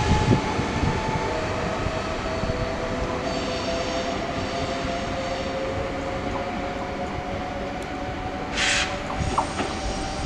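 SNCF Z 24500 (TER 2N NG) electric multiple unit accelerating away, its asynchronous traction motors giving a steady whine that slowly rises in pitch over the train's rumble, growing fainter as it draws off. A short hiss near the end.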